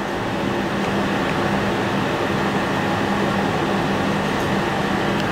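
Steady room noise: a constant low hum under an even hiss, with no change in level.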